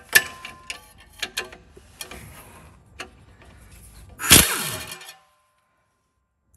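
Metal tools and fasteners clinking and tapping, sharp clicks with a short ring, while Torx bolts are taken out of the exhaust manifold support underneath the car. About four seconds in there is a louder rattling burst that falls in pitch, and the sound then cuts off abruptly.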